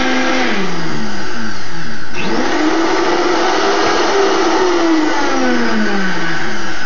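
Vitamix high-powered blender motor running loud and steady, blending a thick avocado chocolate pudding. Its pitch keeps sagging and coming back up, with a sharp dip and recovery about two seconds in.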